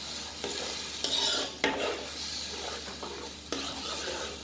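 Blended curry paste sizzling in hot oil in a steel pot while it is stirred, the utensil scraping against the pot in several strokes.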